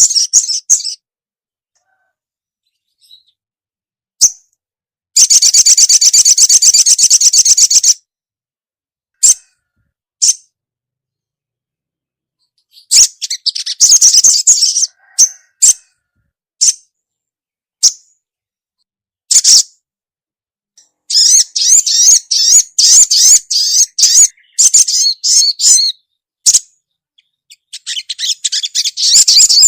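Ruby-cheeked sunbird (sogon) female calling: high, rapid chirping trills in bursts of a second or more, broken by silences and single sharp chirps. The longest run of trilling comes about two-thirds of the way through.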